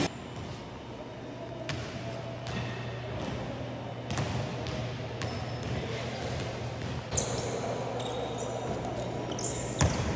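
Basketballs bouncing on a hardwood court floor: scattered single thuds at uneven intervals, over a steady low hum.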